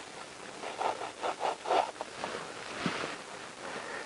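Crumpled paper wadding being pulled by hand out of a motorcycle engine's exhaust ports: a run of short rustles and rubs, with a second one about three seconds in.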